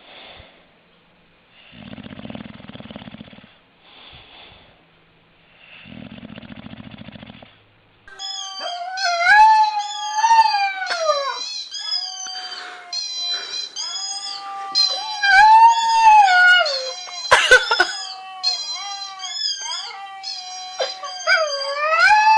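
A dog snoring in two long, buzzing snores, then, about eight seconds in, a dog howling in loud, long wavering howls that rise and fall in pitch, broken by one short sharp burst about two-thirds through.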